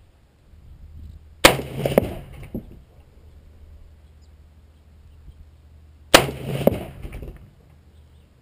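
Two rifle shots from a Saiga .308 semi-automatic rifle, about four and a half seconds apart, each a sharp crack followed by a second peak and a short echoing tail.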